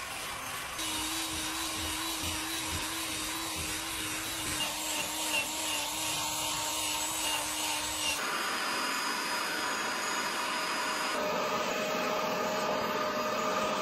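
Cordless drill spinning a scrub brush pad over foamed car-seat upholstery: a steady motor whine with the scrubbing of the brush on the fabric. In the last few seconds the sound changes abruptly to a different steady machine hum.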